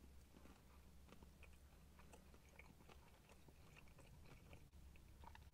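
Faint, closed-mouth chewing of a bite of fried chicken: soft scattered clicks over a low steady hum.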